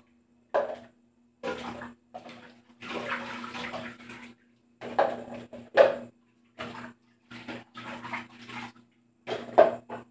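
Dishes being washed by hand in a metal basin: water splashing and sloshing in short bursts that cut in and out abruptly, with a few louder sharp hits about half a second, six and nine and a half seconds in.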